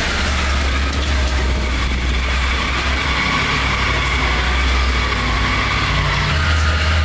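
Triumph Tiger 900's three-cylinder engine idling steadily while the motorcycle is ridden slowly.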